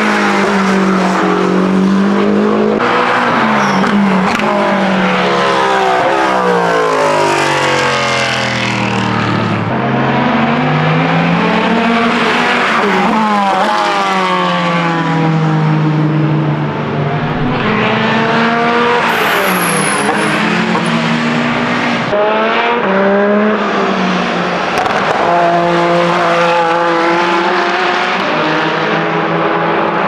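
Endurance race cars passing at speed one after another. Each engine note slides up as a car approaches and drops as it goes by, in several passes in a row.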